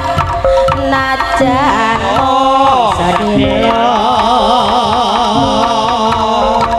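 Javanese jaranan music played loud over a sound system: hand drums keep a steady beat under a melodic lead that slides and wavers in pitch.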